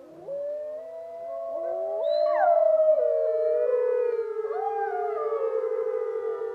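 A pack of wolves howling together: several long, overlapping howls at different pitches. One howl rises steeply about two seconds in and slides back down as the chorus swells.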